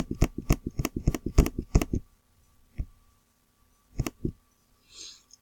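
Computer mouse clicking: a fast run of clicks for about two seconds, then one single click and a pair of clicks near the end.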